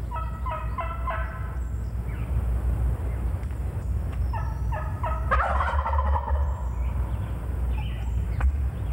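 Hen-turkey yelping on a mouth call, a short run of notes near the start and another about four seconds in, cut into by a wild turkey gobbler gobbling about five seconds in, the loudest sound. The gobbler answers before the calling ends, the sign of a worked-up bird coming to the call.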